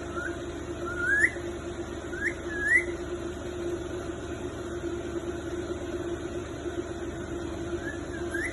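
Pet parrot giving short, rising squeaky chirps, four or five in the first three seconds and two more near the end, over a steady low hum.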